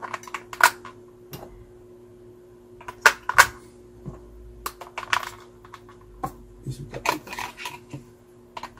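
Scattered sharp clicks and knocks of AAA batteries being pushed into a plastic calculator battery compartment, and small objects being handled on the table. The loudest pair of clicks comes about three seconds in, over a faint steady hum.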